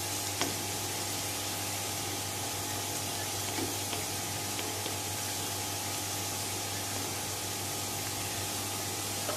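Chopped onions sizzling in hot ghee in a kadhai, lightly browned: a steady, even hiss, with a faint low hum underneath.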